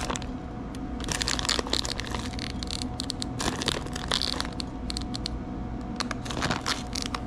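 Plastic bag of shredded cheese crinkling and rustling as it is handled and shaken, with irregular crackles, over a faint steady hum.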